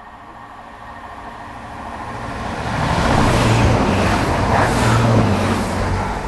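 Chiltern Railways diesel train passing through the station at speed without stopping: its rumble and rushing swell over about three seconds, hold loud for a couple of seconds, then fade away.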